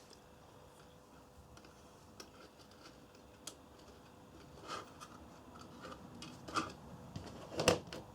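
Scattered small clicks and taps of hand tools working on the circuit board, the loudest a sharper tap near the end.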